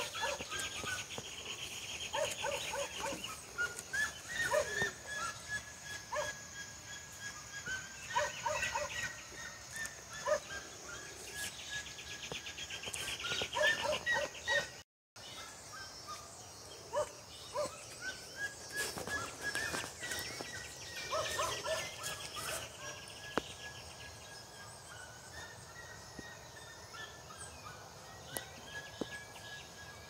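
Chickens and other birds calling: many short, overlapping clucks and chirps, with a brief moment of silence about halfway through.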